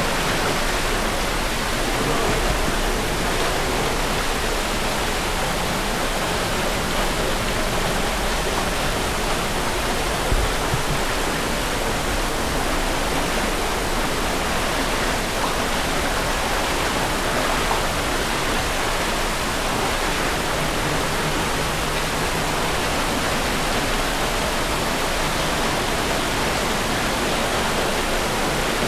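Waterfall: a steady, unbroken rush of falling water close by.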